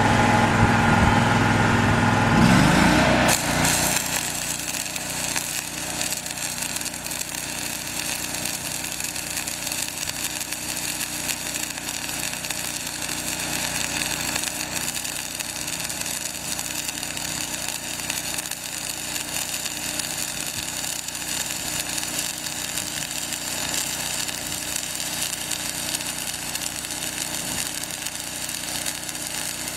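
Flux-core wire-feed arc welding at about 21 volts, the arc crackling steadily as a bead is run, louder for the first three seconds or so. A steady engine hum runs underneath.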